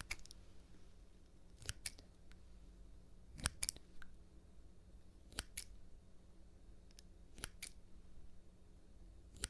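Scissor blades snipping close to the microphone: a crisp double click about every two seconds.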